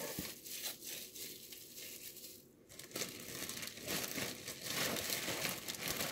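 Plastic freezer bag and cling wrap crinkling and rustling as a wrapped piece of meat is worked into the bag, going quieter for a moment about two and a half seconds in.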